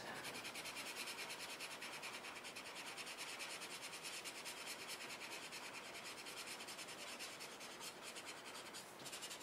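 Colorless blender marker tip rubbed back and forth over layered colored pencil on paper, a faint, steady scratchy rubbing in quick, even strokes as the solvent blends the pencil layers.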